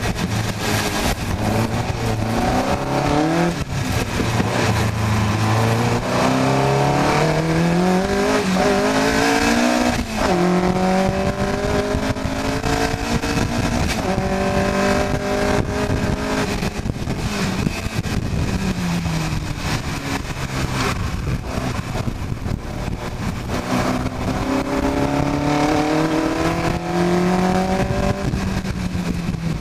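Onboard sound of a car-engined single-seater race car's engine under hard acceleration. Its pitch climbs and breaks at each gear change, falls as the car slows for a corner, and climbs again near the end, with wind rushing over the microphone.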